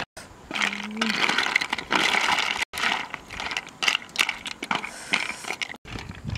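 Snail shells clattering and scraping against each other and the metal wok as they are stirred with a spatula: a dense run of small clicks and rattles.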